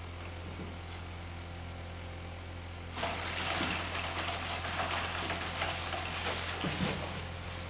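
Rustling and crinkling of cloth and crumpled paper as a table-top puppet is handled and moved about, starting suddenly about three seconds in and lasting about four seconds. A steady low hum runs underneath.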